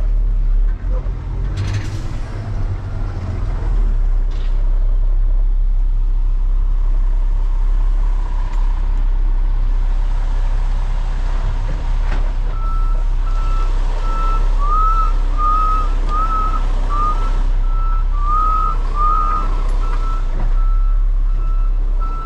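Semi truck's diesel engine running at low speed with a steady low rumble, and a brief air hiss about two seconds in. From about halfway through, a backup alarm beeps over and over at a steady pitch.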